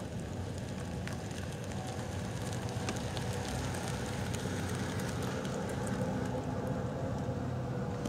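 A motor vehicle engine running at idle: a low, steady rumble with a faint hum.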